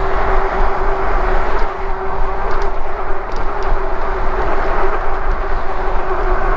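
Wind rushing over the microphone and tyre noise of an e-bike riding on a concrete sidewalk at about 20 mph, loud and steady, with a steady hum under it and a few light clicks about halfway through.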